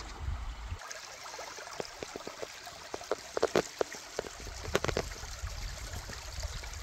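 A small, shallow stream trickling and gurgling over stones, with scattered sharper splashes.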